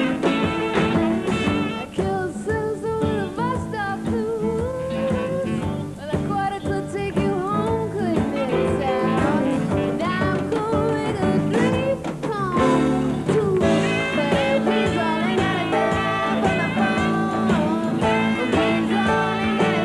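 Live band playing: a tenor saxophone plays a melodic line over electric bass, drums and guitars, and a woman's voice sings with the band.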